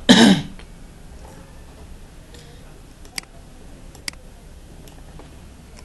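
Two sharp clicks about a second apart from a computer mouse or keyboard, with a few fainter ticks between, while code is edited on screen.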